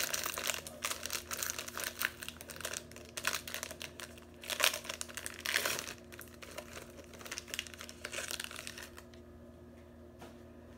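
A Donruss Optic football card pack's wrapper is torn open and crinkled as the cards are pulled out. The dense crackling dies away about nine seconds in.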